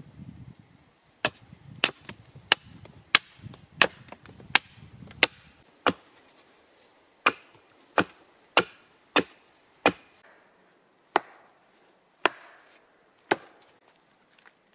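Repeated sharp wooden knocks: a heavy log-section post driver slammed down onto a wooden stake, driving it into the ground. The strikes come steadily about every two-thirds of a second, slowing to roughly one a second near the end.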